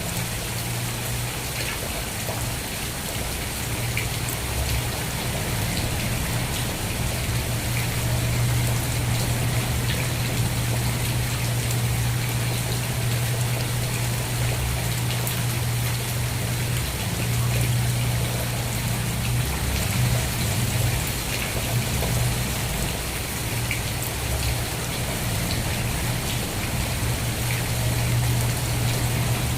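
Steady rain falling, with many small drops tapping on a surface and a constant low rumble underneath.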